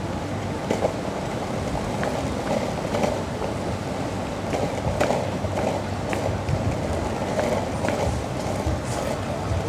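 Elos longboard's wheels rolling steadily over street asphalt, a continuous low rumble with a few sharp clicks.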